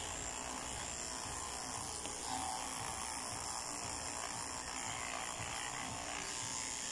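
Corded electric dog clippers running with a steady buzz, shaving a Maltese terrier's coat down to the skin.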